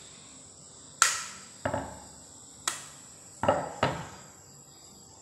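A hen's egg being knocked against a hard edge to crack its shell: five sharp taps over about three seconds, the first the loudest.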